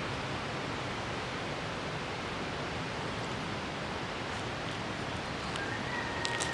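Steady rushing of a waterfall, an even wash of water noise with no rhythm. A few sharp clicks and a faint high tone come in near the end.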